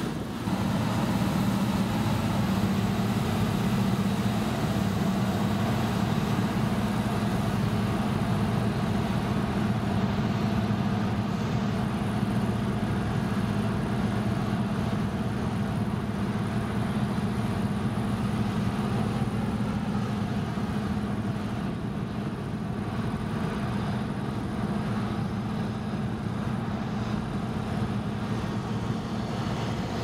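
John Deere combine harvester running at working speed: a steady low engine and machinery hum while it unloads grain into a trailer and then moves off.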